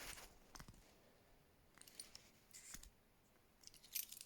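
Near silence with a few faint, short clicks and rustles of a keychain and its small gadgets being handled.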